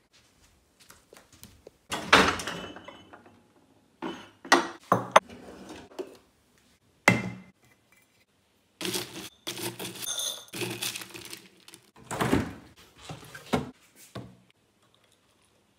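Kitchen handling noises as breakfast is put together: a string of thunks, knocks and clinks from a plastic canister, a ceramic bowl and a spoon on a wooden counter, with a longer rattle about nine seconds in.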